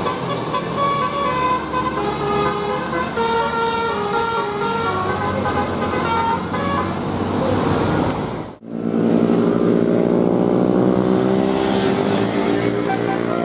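Indonesian bus 'telolet' basuri musical horn playing a run of quick changing notes like a tune. It breaks off sharply about eight and a half seconds in and gives way to a long held multi-tone horn chord that wavers slightly.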